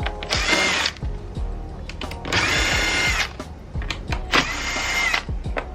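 Cordless power screwdriver whirring in three short bursts as it backs screws out, over background music.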